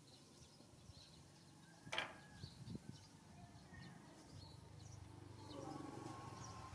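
Near silence, broken by one sharp knock about two seconds in, with faint high chirps in the background.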